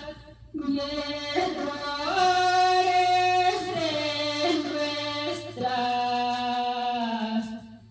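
A woman singing a Spanish Christian Christmas praise song solo, in long held notes that step between pitches, with a short breath about half a second in and another near the end.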